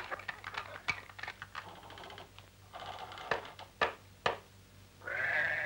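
Sheep in a pen: scattered light clicks and knocks, with three sharper knocks a little past halfway, then one sheep bleats near the end.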